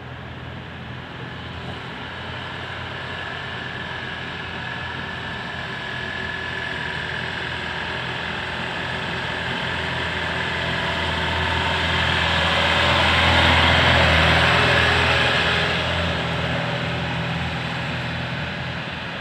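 Heavy truck's diesel engine drone with tyre noise, growing louder as it approaches, loudest a little past the middle as it passes close, then fading as it draws away.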